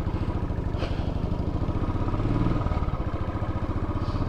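Royal Enfield Bullet single-cylinder motorcycle engine running steadily while riding, with an even, rapid beat.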